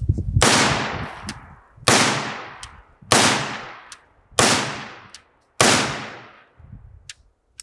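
A rifle firing five single shots, a little over a second apart, each followed by a long fading echo. The rifle is caked in wet sand and mud, and it cycles through every shot without a stoppage.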